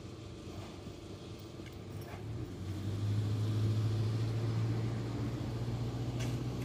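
A motor vehicle's engine running with a low, steady hum that grows louder about two and a half seconds in and then holds.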